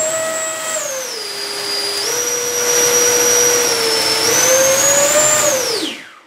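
Electric ducted fan of an E-flite F-4 Phantom II RC jet running at high throttle with a loud whine whose pitch shifts with the throttle: it drops about a second in, steps up again around two seconds, rises once more near five seconds, then spools down and stops about six seconds in.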